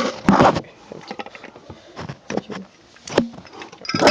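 Handling sounds of a Zippo lighter's metal lid being used to pry open the cap of a Zippo lighter fluid can: a run of sharp clicks, knocks and scrapes, loudest right at the start and again near the end.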